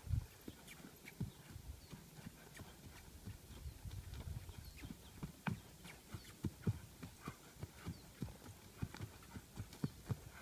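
Horse's hoofbeats: a run of dull thumps, with one louder thump right at the start and more evenly spaced strides in the second half.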